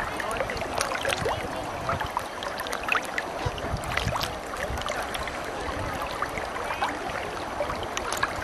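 Choppy lake water lapping and splashing right at the microphone: a steady wash with many small, quick splashes.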